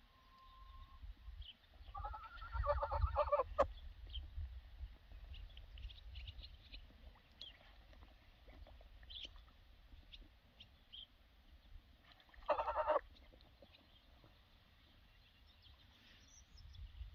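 Young Embden geese calling: a longer pitched call about two seconds in and a shorter one past the middle, over a low rumble.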